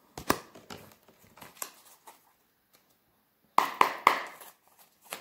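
A deck of oracle cards being shuffled by hand: soft card rustles and small clicks, then a quick run of three or four louder slaps of card against card about three and a half seconds in.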